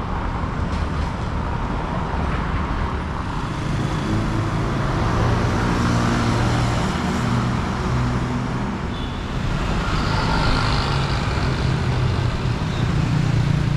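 Street traffic: cars and motorbikes passing on a city road, their engines and tyres making a continuous rumble that swells twice as vehicles go by close.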